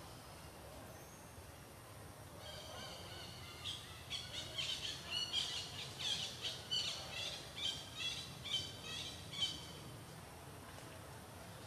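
A bird calling: high chirping notes start about two seconds in and build into a rapid run of two to three chirps a second, stopping shortly before the end, over faint outdoor background noise.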